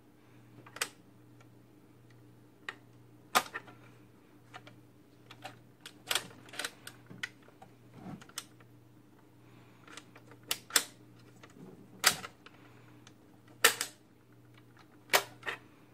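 Sharp mechanical clicks, about a dozen at uneven intervals, as the record changer's control lever and tonearm mechanism are worked by hand, over a steady low hum from the powered player. The mechanism is not working freely, which the owner puts down to seeds stuck underneath it.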